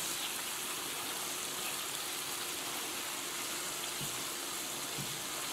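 Butter and white-wine sauce sizzling steadily in a frying pan around a cod fillet, with two faint soft knocks about four and five seconds in as a slotted spatula works under the fish.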